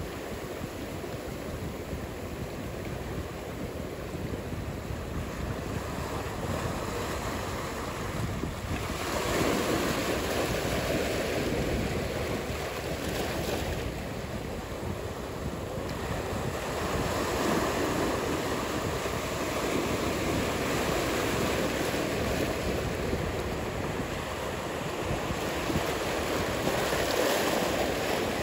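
Ocean surf washing steadily, swelling and easing every several seconds, with some wind noise.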